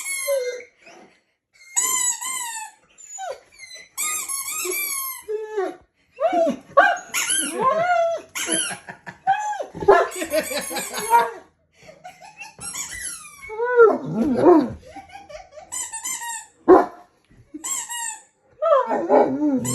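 A poodle whining and howling, set off by bouts of repeated high-pitched squeaks. Its cries bend up and down between the squeaks.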